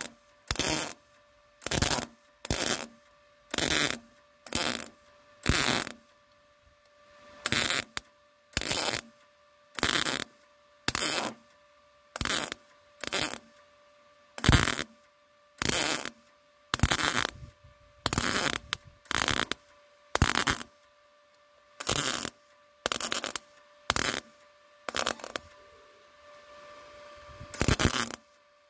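MIG welder stitch-welding a repair patch of sheet steel into a car's door pillar: about two dozen short crackling bursts of arc, each under half a second, roughly one a second with brief pauses between, over a faint steady hum.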